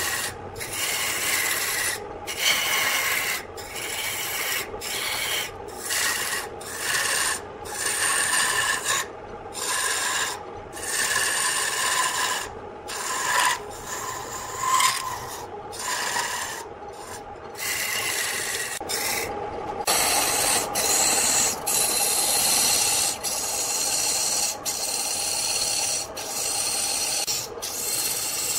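Hand-held turning tool cutting a spinning wooden blank on a lathe: a rasping scrape of shavings coming off the wood, broken by brief pauses about once a second as the tool lifts off. Near the end the cut runs on more steadily with fewer breaks.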